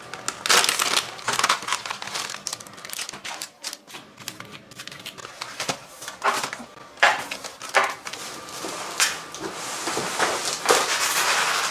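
Plastic packaging crinkling and rustling as it is handled and torn open, with irregular clicks and knocks of items being set down.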